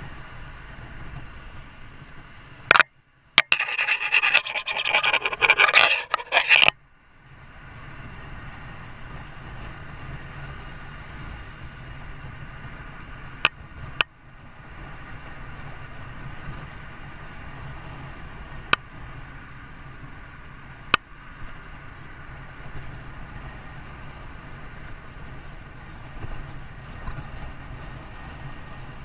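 Loud scratching and rubbing close to the microphone for about four seconds, starting about three seconds in, over a steady low background rumble; a few sharp clicks follow later.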